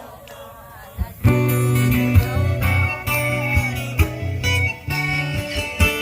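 Live band playing an instrumental passage led by guitar over a steady bass line and beat; the music drops low for about a second, then the full band comes back in.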